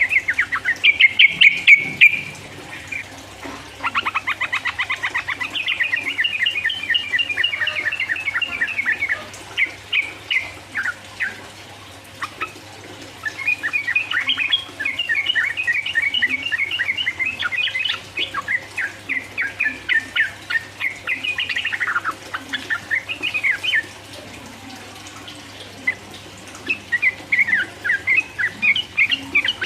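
Yellow-vented bulbul (trucukan) singing its rapid chattering 'ropel' song: long runs of quick, bright notes in several phrases, each lasting several seconds, with short pauses between. A faint steady low hum lies underneath.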